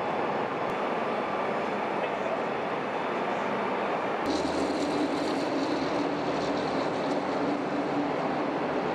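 Steady rumble of vehicle engines and traffic at a motorway crash scene. About four seconds in the sound changes abruptly, and a steady droning tone joins in with a higher hiss above it.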